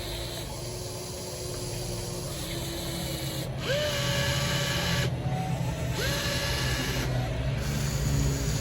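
RC excavator's small electric motors whining through several separate movements, each a steady tone held for one to two seconds. From about three and a half seconds in come higher whines that rise quickly as a motor spins up and then hold, over a growing low hum.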